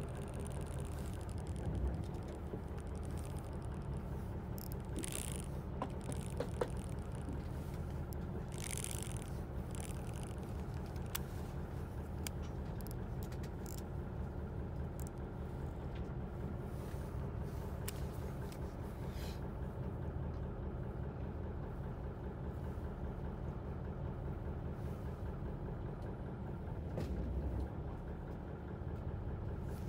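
Fishing boat's engine running steadily at idle, a constant low drone, with a few brief hisses over it.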